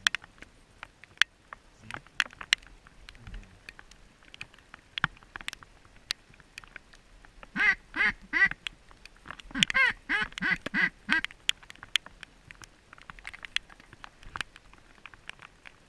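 Duck quacking: a run of four quacks about eight seconds in, then a longer run of about seven, among scattered small clicks and taps.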